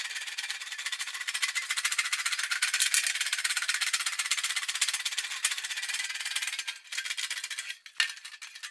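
Aluminium body panel being rolled back and forth through an English wheel, giving a dense, fast crackling rattle as the sheet passes between the wheels. It breaks off briefly twice near the end.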